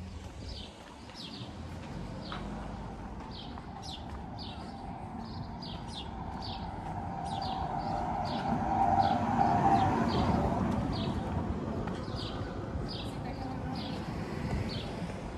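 A car passing on the street, growing louder to a peak about nine to ten seconds in and then fading. Over it, a small bird chirps over and over in short high notes.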